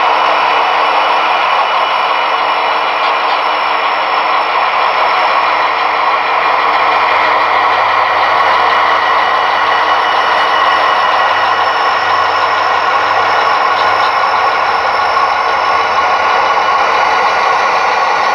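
Sound-equipped HO scale model diesel locomotives moving slowly, their sound decoders playing a steady diesel engine sound through small on-board speakers.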